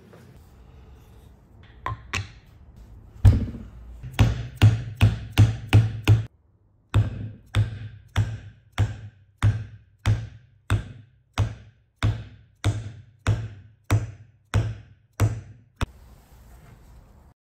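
Repeated hammer blows on a steel dumbbell end, driving it down onto the steel bushing in a wooden handle. There are about twenty even knocks, roughly one every 0.6 s, each a dull thud with a short metallic ring, after two lighter taps.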